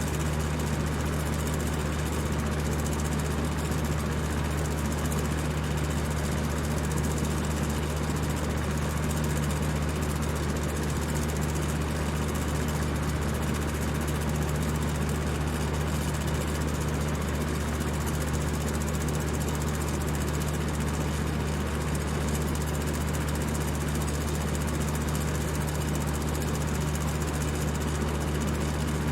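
High-speed electric fan running steadily: a constant low motor hum under an even rush of air.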